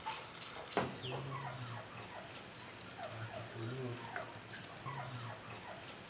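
Chickens clucking low and chirping in short repeated calls, over a steady high drone of insects; one sharp knock about a second in.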